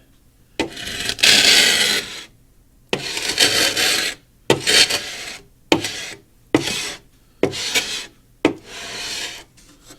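Hand scraper scraping paint off the top panel of a wooden radio cabinet, in about seven separate rasping strokes, the first one the longest.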